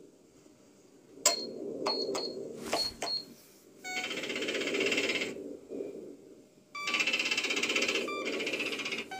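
Spaceship computer terminal sound effects from a film soundtrack: a few sharp key clicks with short high beeps, then bursts of rapid electronic chattering and beeping as the computer prints text on its screen. A low steady ship hum runs underneath.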